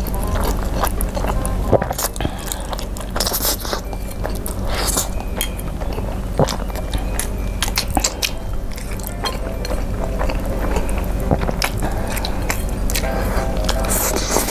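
A person slurping and chewing spicy fried instant noodles eaten with chopsticks, close to a clip-on mic, with many short wet mouth clicks and smacks.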